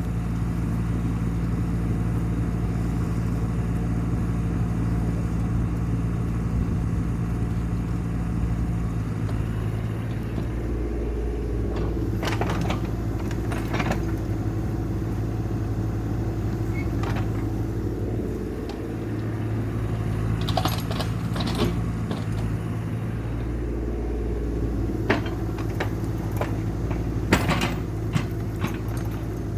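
CAT excavator's diesel engine running steadily while it digs, its note shifting a couple of times as the hydraulics take load, with scattered sharp clanks and knocks from the working machine.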